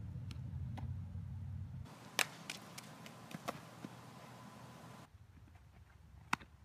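Several sharp smacks of a softball during infield fielding drills, the loudest about two seconds in and again near the end, with a few fainter ones between. A low rumble underlies the first two seconds.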